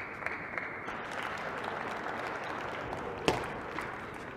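Audience applauding in a table tennis hall, with one sharp knock of a table tennis ball being struck about three seconds in.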